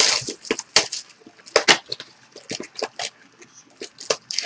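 Foil wrapper of a Topps Finest baseball card pack crinkling and tearing as it is ripped open by hand: a quick, irregular run of crackles and rustles.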